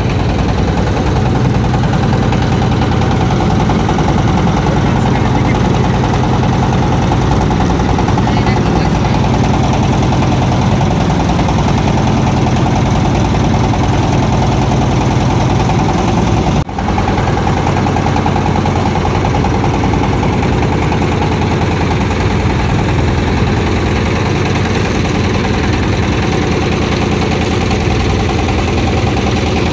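An engine running steadily at an even speed, with a brief dropout about two-thirds of the way through.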